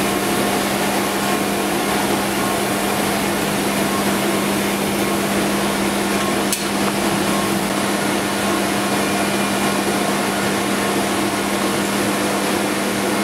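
Steady whir and hum of print shop machinery, with one sharp click about six and a half seconds in.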